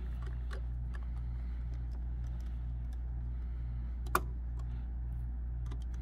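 A screwdriver turning a CPU heatsink's captive screw gives faint ticks and one sharp click about four seconds in, over a steady low hum that pulses slowly.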